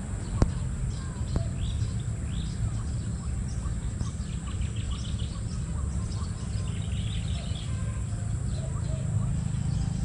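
Small birds chirping, many short calls throughout, over a steady low rumble, with one sharp click about half a second in.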